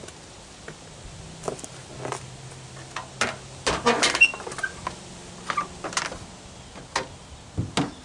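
Black bumper top pad being set onto a Chevrolet Silverado's chrome front bumper and pressed into place: a series of knocks, clicks and rattles, busiest about three to four seconds in.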